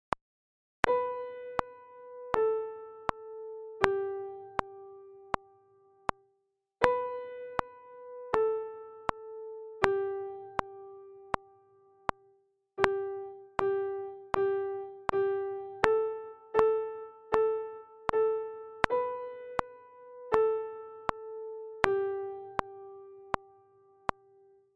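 Piano playing a slow three-note beginner exercise on B, A and G: B–A–G with the last note held, played twice, then G four times, A four times, and B–A–G again. A metronome ticks steadily about 80 times a minute underneath.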